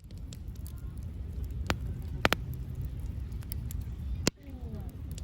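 Wood campfire crackling, with a few sharp pops, over a steady low rumble. A brief dropout a little after four seconds.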